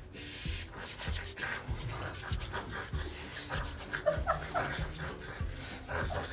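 Dry hands rubbed briskly together in a repeated scrubbing motion, mimicking hand washing without water.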